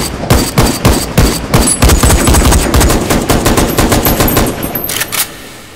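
Rapid automatic rifle fire in long bursts of closely spaced shots, cutting off about five seconds in and leaving a fading tail.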